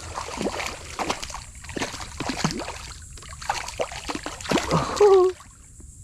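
Water splashing and sloshing as a small hooked snook thrashes at the surface while being reeled in beside a canoe, in quick irregular splashes. A short pitched sound with a falling pitch comes about five seconds in.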